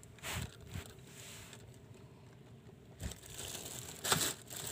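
Black plastic bag rustling and crinkling as it is handled over a boat's fish hold, with a few short scattered crackles and scrapes; the loudest crackle comes about four seconds in.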